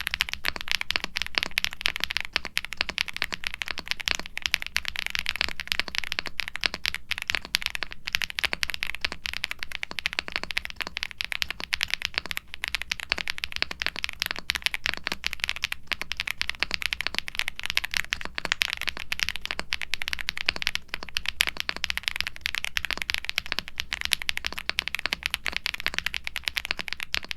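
Fast continuous typing on a Gray Studio Space65 R3 aluminium mechanical keyboard with a PC plate, full foam dampening, Kailh BCP linear switches and PBT keycaps. The keystrokes give rapid clacks that the builder calls marbly and glassy.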